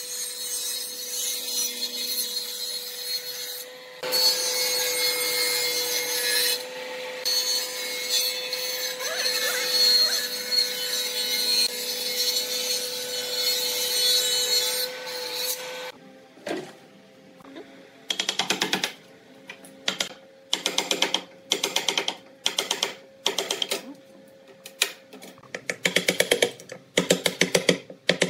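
Table saw running and cutting a pine board, a steady hum under a noisy cut, for about the first sixteen seconds. Then a chisel scraping along the board's edge in short separate strokes, roughly one a second, coming faster near the end.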